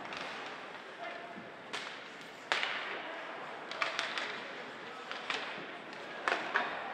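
Ice hockey play: sticks hitting the puck in sharp clacks, several of them spread through, over the hiss of skates on the ice and rink noise.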